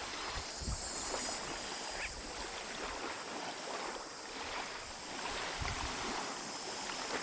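Steady hiss of wind and surf, with a few faint scattered clicks.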